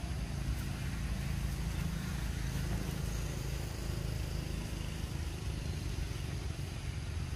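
Steady low outdoor rumble with a faint even hiss above it, with no clear calls or knocks.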